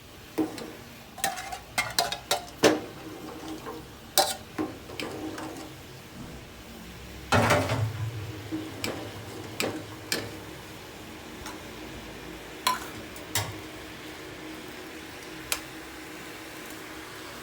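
A utensil clinks and scrapes against a cooking pot while the dry-ginger and coconut-milk mixture is stirred, with scattered sharp clinks. A louder, longer clatter comes about seven seconds in, and the clinks grow sparse near the end.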